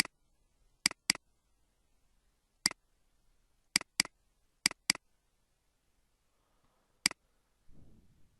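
Computer mouse clicking: about nine sharp clicks, several in quick double-click pairs, with a short low rustle near the end.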